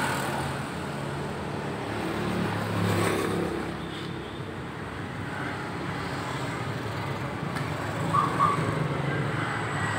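Background road traffic with a motor vehicle engine running steadily; it swells briefly about two to three seconds in.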